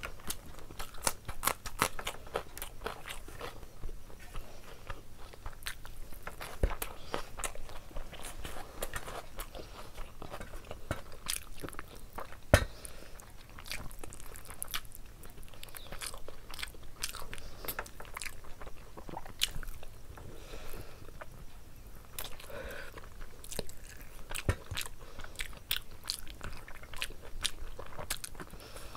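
A person biting and chewing a mouthful of chicken curry and rice, eaten by hand. The mouth sounds come as a steady run of small clicks, with one sharper click about twelve seconds in.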